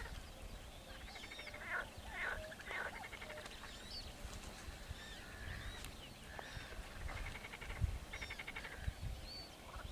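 A flock of birds calling over one another: many short chirps and sliding notes mixed with fast, rattling chatter, over a low rumble.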